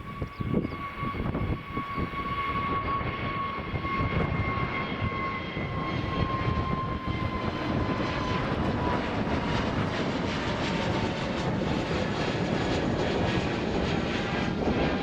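Airbus A320neo's CFM LEAP-1A jet engines at takeoff power, a loud rushing noise with a steady high whine that slowly drops in pitch as the airliner passes. It cuts off suddenly at the end.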